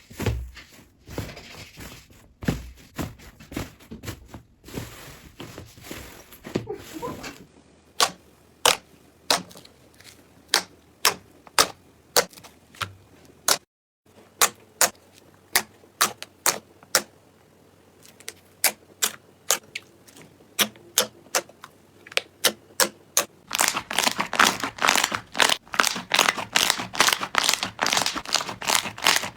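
Slime being pressed and squeezed by hand, giving sharp clicking pops at about two a second, then a denser crackling run of clicks near the end.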